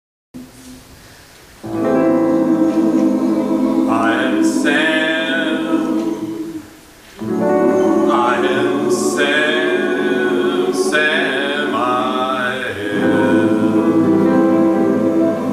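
Male voices singing in harmony, long held chords broken by two short pauses, about 7 and 13 seconds in.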